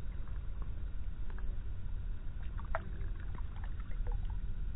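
Small splashes and drips of water in an ice-fishing hole as a released crappie swims back down, over a steady low rumble.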